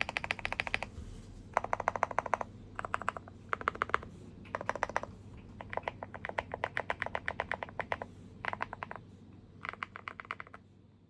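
Mechanical keyboard with Moyu x JWK Hades switches on a polycarbonate plate, fully foamed and taped, being typed on in fast bursts of clacking keystrokes. Several bursts come with short pauses between them, and the typing stops near the end.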